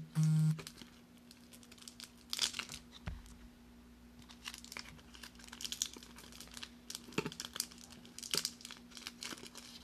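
Foil wrapper of a 1994 Pacific Crown Triple Folder football card pack being torn open and crinkled by hand, in several bursts of crinkling. A short, loud low electronic tone sounds at the very start, and a faint steady hum runs underneath.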